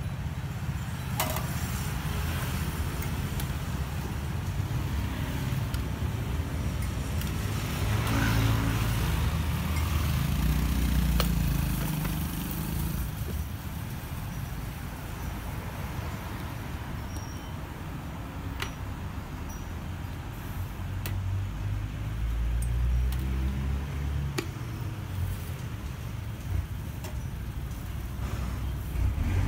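Road traffic going by, its low rumble swelling twice as vehicles pass. Several sharp clinks of glass mugs and steel coffee pots sound over it as Thai iced coffee is made with cloth-sock filters.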